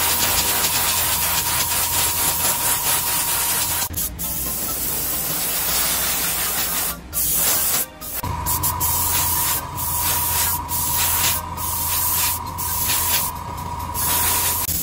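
Airbrush spraying paint onto small plastic model parts: a steady hiss, stopping briefly several times as the trigger is let off, over the steady hum of the spray booth's fan.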